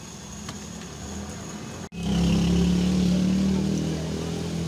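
Oil sizzling faintly in a large frying wok. About two seconds in, the sound cuts out for an instant, and then a motor vehicle's engine runs steadily with a low, even hum, louder than the frying.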